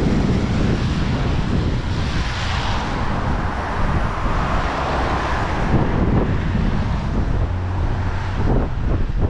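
Strong wind buffeting the microphone: a loud, gusty low rumble under a steady hiss, with a broad wash of noise that swells and fades between about two and five seconds in.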